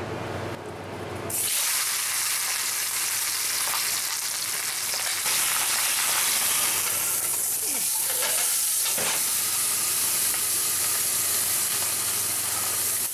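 Whole seasoned chicken sizzling as it sears in a hot bare cast iron Dutch oven. The sizzle breaks out suddenly about a second and a half in, as the bird goes into the pot, then carries on as a steady hiss, a little louder from about five seconds in.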